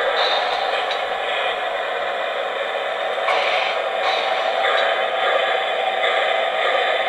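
O-gauge model trains running on three-rail track, giving a steady rolling wheel-and-rail noise.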